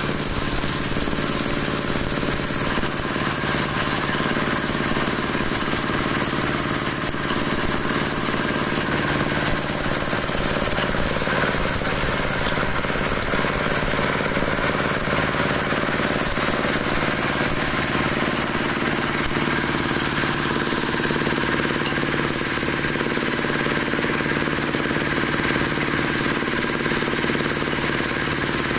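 Broom-handle dowel machine running steadily, a constant-pitch machine hum with hiss that does not let up.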